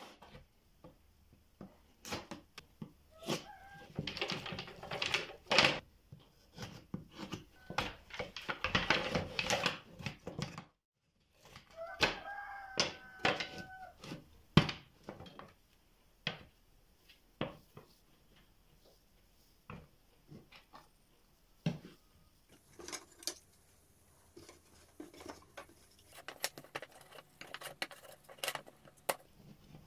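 Thin wooden slats clattering and knocking against one another and the workbench as they are sorted, laid out and bundled by hand, a string of short wooden knocks with denser bursts in the first half.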